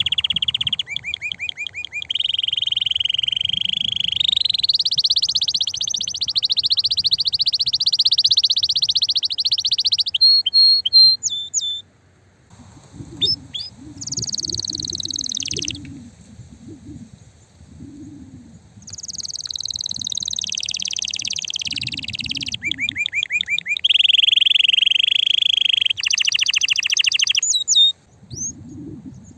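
Male canary singing a loud, continuous song of rapid trills and rolls, with brief pauses between phrases about halfway through and near the end.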